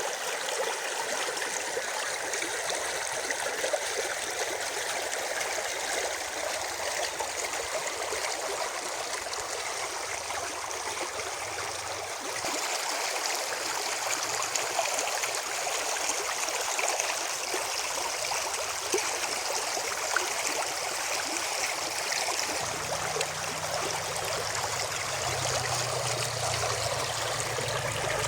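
Spring water running in a steady rushing, splashing flow, like a small stream. The rush gets brighter and hissier about halfway through.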